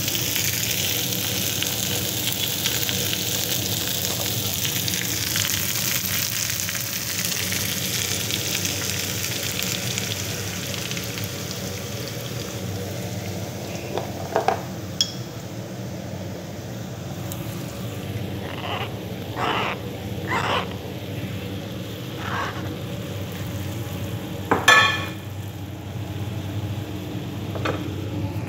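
Diced potatoes and zucchini with onion sizzling in oil in a frying pan. The sizzle dies down gradually after the heat is turned down, and a few short knocks and scrapes come in the second half.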